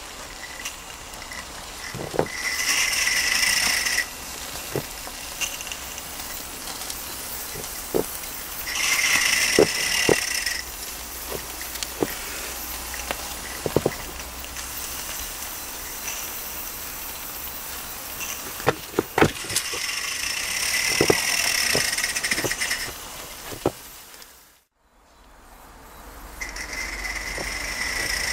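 Mamod Double Fairlie live-steam model locomotive hissing steam in spells of one to three seconds, with scattered sharp clicks and knocks between them.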